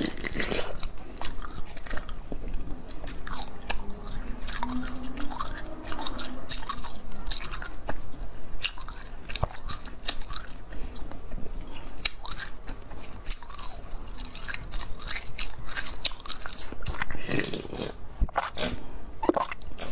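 Close-up biting and chewing of a swirl-shaped piece of coloured ice: a run of sharp crunches and crackles, with chewing between them, thickest near the end.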